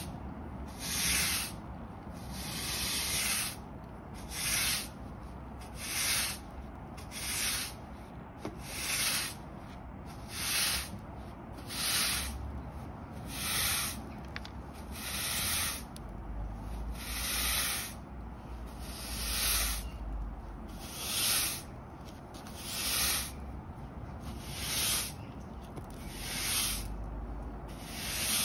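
Hard-bristle broom sweeping dirt and grit across concrete block paving in short, repeated strokes, about one swish every one and a half seconds.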